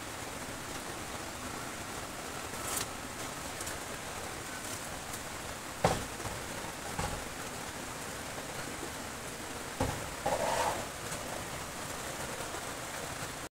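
Steady rain falling, a continuous hiss, with a few sharp knocks, the loudest about six seconds in and another near ten seconds.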